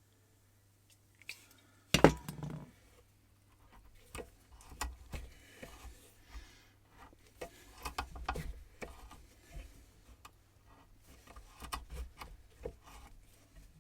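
Workshop handling noises: scattered clinks, knocks and rubbing of tools and small metal parts on a bench, with one sharp knock about two seconds in.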